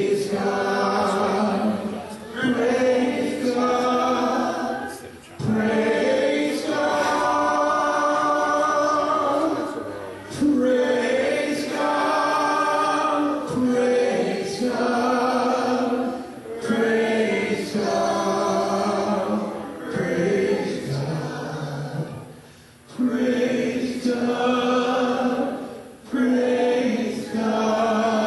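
A congregation singing a hymn together, in sung phrases with short breaks for breath between them.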